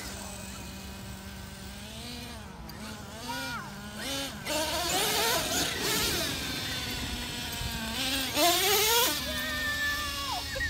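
Radio-controlled monster truck motors whining, their pitch rising and falling again and again as the trucks speed up and slow down. There are louder rushes of noise about halfway through and again near the end.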